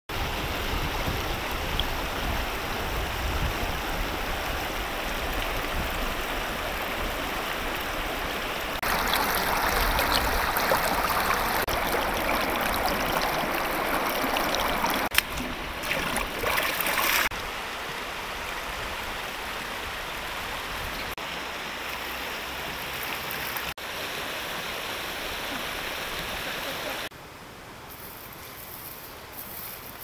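Steady rushing of river water, stepping up and down in level at several cuts, with irregular splashing about fifteen to seventeen seconds in as a large fish is held thrashing in the shallows.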